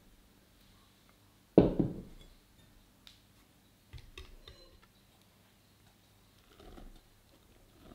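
Kitchen handling sounds while flour is worked into a batter in a glass mixing bowl with a wire whisk: one loud thump about one and a half seconds in, then a few light clicks of the whisk against the glass bowl.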